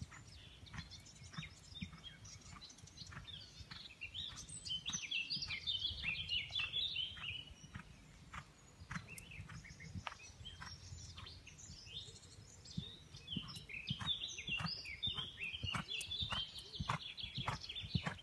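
A songbird sings in two long runs of quick high chirps. Under the song come the soft, regular hoofbeats of a horse trotting on an arena's sand surface, about two a second.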